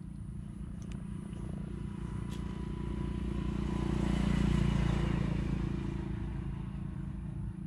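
An engine passing by: a low hum that grows louder to a peak about four and a half seconds in, then fades away.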